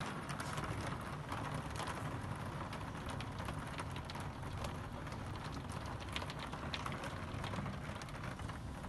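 Heavy rain falling steadily, with many individual drops ticking sharply against the window glass.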